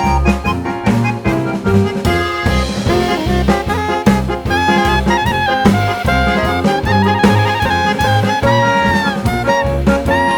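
Background music: upbeat jazz with saxophone or brass lead over a walking bass and drum kit.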